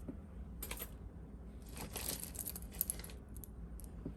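Costume jewelry pieces clinking and rattling as they are handled and sorted: one light click, then a short cluster of clinks and rustling about two seconds in.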